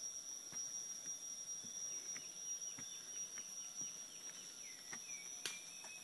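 Rainforest insects keeping up a steady high-pitched drone, with a run of short falling chirps over it and a few faint taps. A single sharp click comes near the end.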